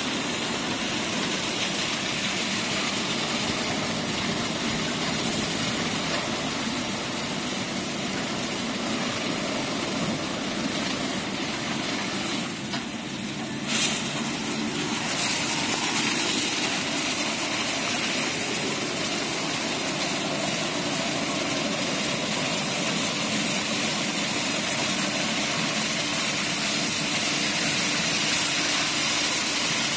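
Conveyor tunnel car wash running: large rotating brushes scrubbing a wet car while water sprays over it, a steady rush of noise. About halfway through the noise dips briefly and there is one short sharp knock.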